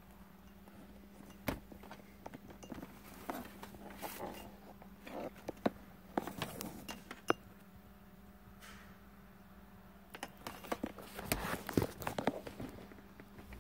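Handling noise: scattered clicks, taps and rustles as cables and the phone are moved about, thickest twice in bursts of a few seconds, over a low steady hum.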